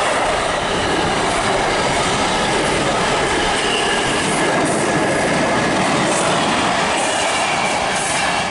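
Container wagons of an intermodal freight train running past at speed: a loud, steady noise of steel wheels on the rails.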